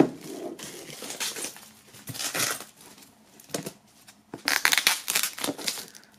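Plastic shrink-wrap film crinkling and tearing as it is peeled off a cardboard box by hand, in irregular spells, the loudest a little past the middle.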